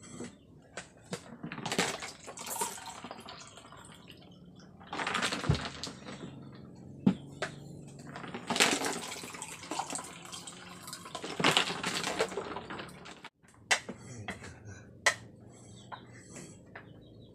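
Water poured from a plastic jug into cups in several short pours, with spoons clinking and scraping on plates and bowls between them.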